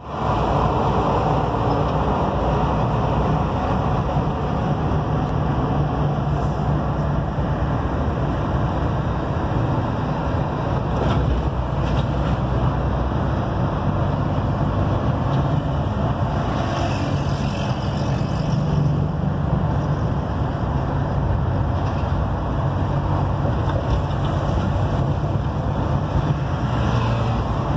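Steady engine drone and road noise heard from inside the cab of a large vehicle cruising along a highway.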